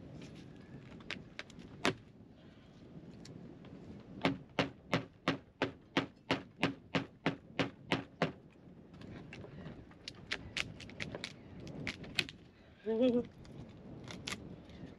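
Hand tool striking the old wooden hull planking of a boat: sharp knocks, at first spaced out, then a quick run of about three blows a second for some four seconds, then spaced out again. The work is hacking the old fastenings and planks off.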